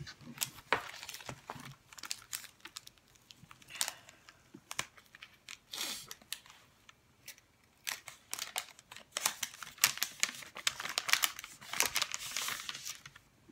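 Plastic file sleeves and paper stationery crinkling and rustling as they are handled, with scattered short clicks and taps. It is busiest in the second half.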